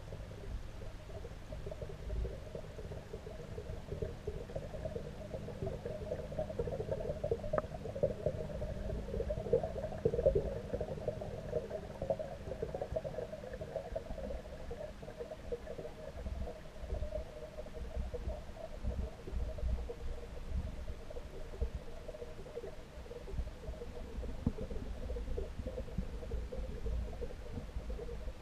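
Muffled underwater noise picked up by a camera submerged in a fish pond: a steady low rumble under a wavering hum.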